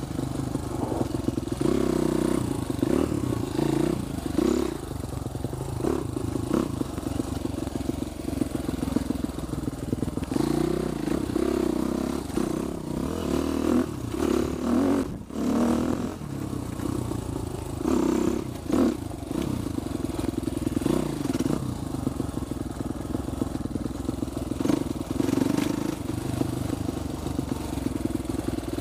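Husqvarna TXC250 four-stroke dirt bike engine running on a downhill trail ride, its note rising and falling with the throttle, with rattles and knocks from the bike over a rough dirt track. The sound dips briefly about halfway through.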